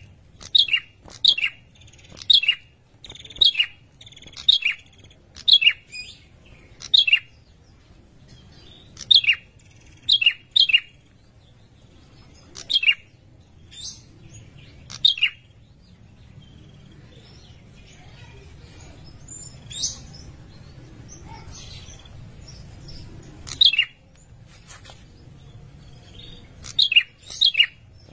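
Male ashy tailorbird (prenjak lumut) giving short, sharp, high calls that drop quickly in pitch. They come about once a second at first, then in scattered pairs and triples with longer pauses. This is its breeding-season call to a female.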